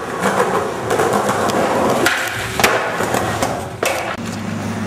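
Skateboard wheels rolling over rough concrete, with several sharp clacks and knocks of the board hitting the ground.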